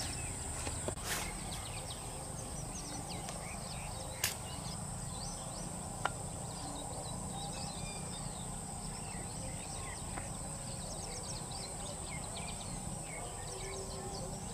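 Outdoor wetland ambience: a steady high-pitched insect drone with scattered bird chirps over a low rumble, and a few sharp clicks, about a second, four seconds and six seconds in.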